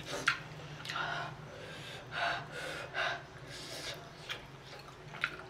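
A woman taking about five sharp, noisy gasping breaths, her mouth burning from extremely spicy fire noodles. A faint low hum runs underneath.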